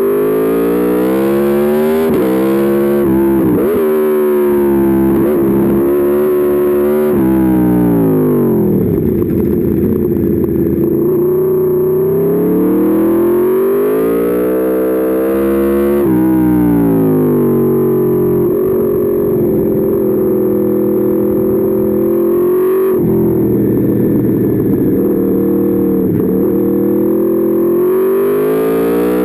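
Aprilia Tuono V4 motorcycle's V4 engine under hard riding. It climbs in pitch and drops back several times in the first half, then holds a fairly steady pitch through the second half.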